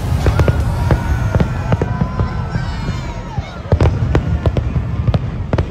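Fireworks going off: irregular sharp bangs and crackling pops, two or three a second, with music and crowd voices underneath.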